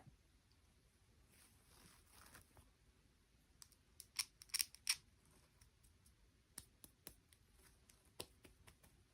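Faint, sharp clicks or snips: a quick cluster of about five about four seconds in, then a few scattered ones later.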